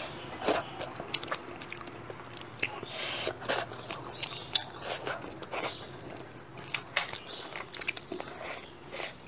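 Close-miked eating of braised crucian carp: chewing and biting sounds, with irregular small clicks of chopsticks picking flesh off the fish bones on the plate.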